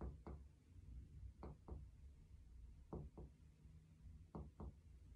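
Finger-on-finger chest percussion during comparative percussion of the lungs. Faint paired taps, two quick knocks about a quarter second apart, repeated four times at intervals of about a second and a half as the fingers move to each new spot.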